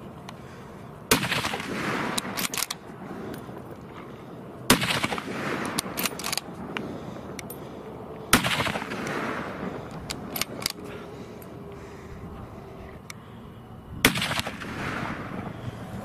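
Four gunshots in a boar hunt, a few seconds apart, each followed by a long echo that dies away over a second or more.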